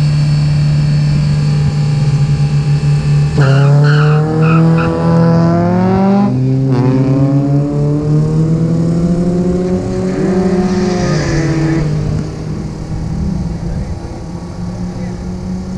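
Two cars, a Nissan sedan and a 10th-generation Honda Civic automatic, holding revs at a drag-strip start line, then launching about three seconds in. The engine note climbs under full acceleration, breaks once for a shift, and fades as they head away down the strip.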